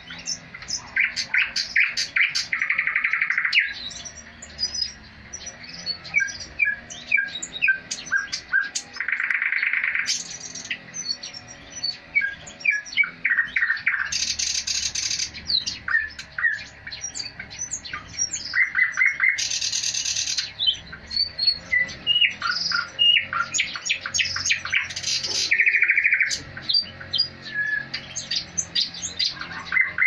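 A thrush nightingale singing: varied phrases of rapid clicks and short whistled notes, broken about every five seconds by a loud, harsh rattling trill lasting about a second.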